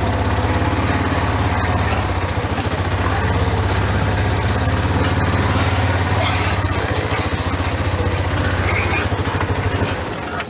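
Engine running steadily nearby with a low, even hum, dropping away near the end.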